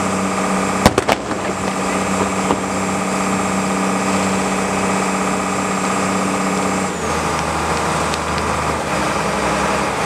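Boat engine running steadily, with a few sharp firework bangs about a second in and another near two and a half seconds. About seven seconds in, the engine's note shifts lower.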